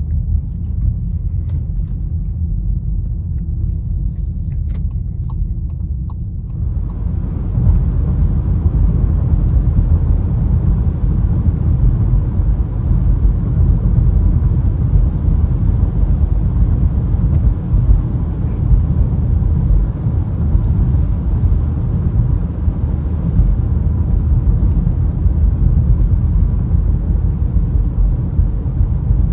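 Cabin noise of a Volkswagen Jetta with a 1.4 TSI turbocharged four-cylinder, driving: a steady low rumble of engine and road. About seven seconds in, a steady tyre-and-road hiss of highway speed comes in and holds.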